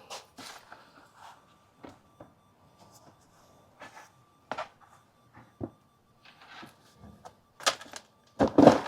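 Plastic GreenStalk planter tiers being handled and fitted together: scattered light knocks and clicks, with a couple of louder thumps near the end.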